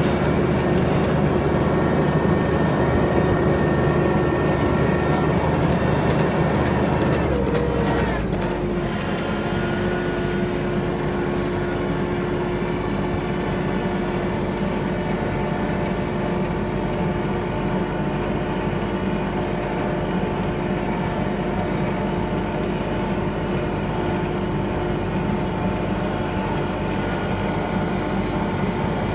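A vehicle engine running with a steady drone, dropping slightly in level and pitch about eight seconds in, then holding steady.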